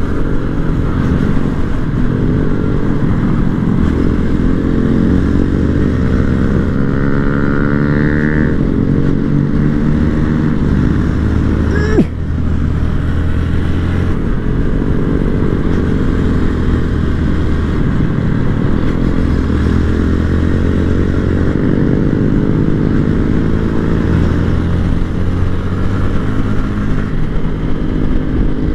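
Small-bore motorcycle engine ridden hard, its pitch climbing and dropping again and again as the throttle rolls on and off and the gears change. A single sharp knock about twelve seconds in.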